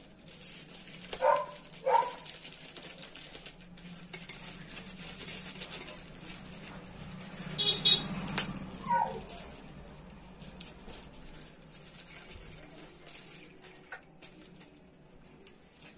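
A plastic bag crinkling and popcorn being poured by hand into steel plates, with a louder crinkle of the bag near the middle. Two short sharp calls stand out about a second in, and another comes just after the crinkle.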